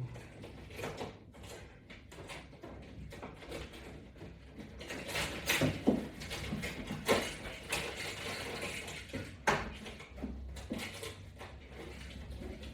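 Irregular rustling and soft knocks from a person doing sit-up crunches on the floor with strap attachments, busiest in the middle of the stretch.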